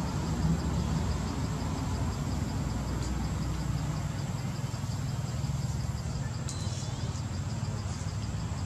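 Outdoor background in the trees: a steady low rumble with a thin high insect trill and fast, even ticking over it. A short, sharp high chirp that slides down in pitch comes about two-thirds of the way through.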